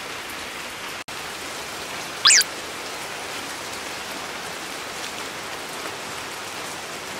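Steady rain falling on the surrounding woods and ground, a continuous even hiss that breaks off for an instant about a second in. About two seconds in, a short high chirp falls quickly in pitch above it.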